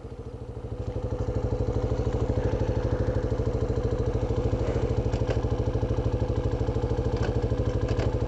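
Motorcycle engine idling with an even, rapid putter, rising a little in the first second, with a few light clicks later on.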